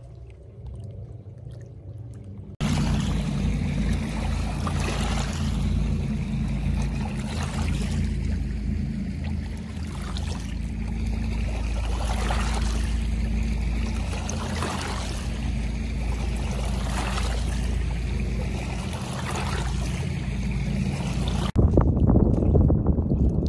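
Small waves lapping and washing over the stony lake shore every couple of seconds, over a steady low drone. The sound jumps louder about two and a half seconds in and changes abruptly near the end.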